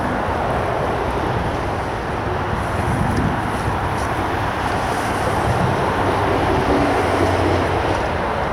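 Steady roar of road traffic passing over the A14 bridge, a continuous wash of tyre and engine noise.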